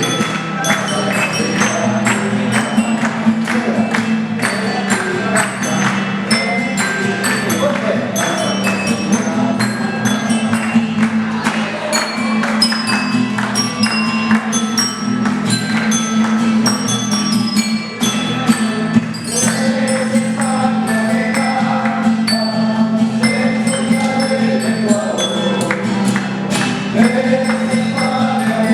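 Live Ecuadorian pasacalle music: many quick struck notes over a steady low tone, with voices singing along mainly in the second half.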